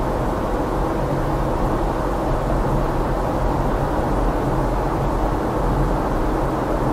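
Steady drone of a car on the move: engine hum and road noise, even throughout.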